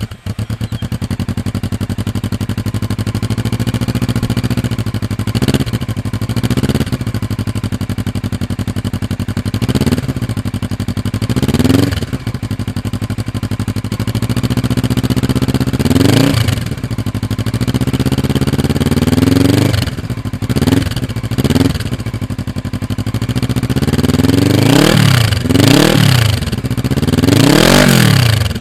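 Kawasaki ER-6N parallel-twin engine idling through an aftermarket sport exhaust and blipped repeatedly. Each blip rises and falls quickly, and the blips come closer together in the last few seconds.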